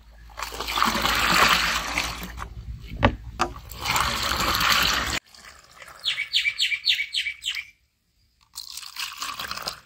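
Frothy watermelon juice sloshing and pouring into an aluminium pot, a steady splashing rush with a couple of knocks. About six seconds in, a bird chirps quickly about seven times.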